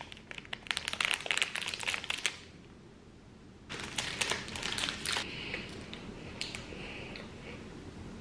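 Plastic snack-bar wrapper crinkling as it is opened and peeled back, in two bouts of crackling with softer rustles after.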